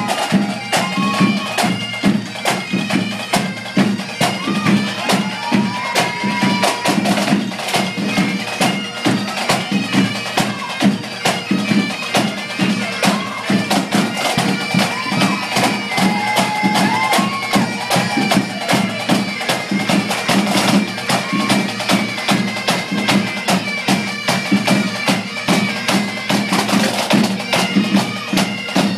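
A pipe band playing: several Highland bagpipes sound a melody over a steady, unbroken drone, with snare and bass drums beating a dense, driving rhythm.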